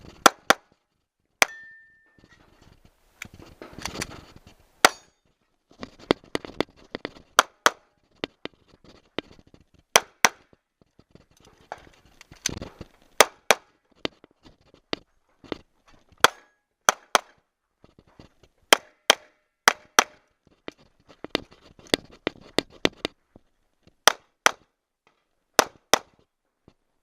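A shooter's stage string: some thirty gunshots, singly and in quick pairs with short pauses between targets. Several hits set steel targets clanging and ringing.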